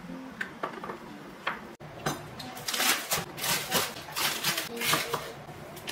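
Kitchen handling sounds, starting suddenly about two seconds in: a dense, irregular run of clicks, knocks and rustles as ingredients and utensils are handled. A few soft music notes come just before.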